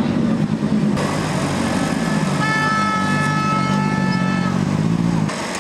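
A steady, loud engine-like drone, with a horn sounding one held note for about two seconds in the middle.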